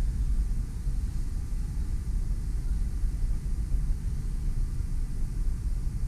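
Steady low rumbling noise with a quick, uneven flutter and no separate events.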